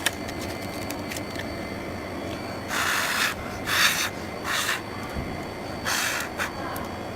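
Four short hissing breaths blown onto a frozen phone LCD, starting about three seconds in and roughly a second apart, to warm the two glue points that harden in the cold so the screen is not damaged as the glass comes off. Underneath is a faint steady machine hum.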